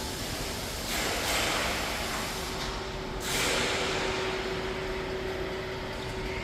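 Steady machinery noise with short bursts of hissing about a second in and again just past the middle, and a steady hum tone through the second half.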